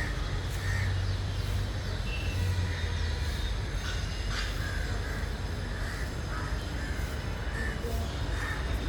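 Birds in an aviary calling, short calls repeating every half second to a second, over a steady low rumble.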